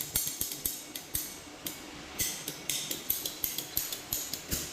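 Hand pipe cutter cutting through a heat-fused 25 mm PPR plastic pipe joint, a series of sharp clicks a few times a second.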